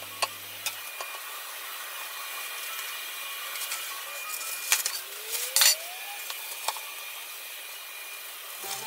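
Kitchen handling sounds: a few light clicks and taps of chopsticks and utensils, then two louder crackly rustles of a paper towel being lifted off the fried food, over a steady faint hiss.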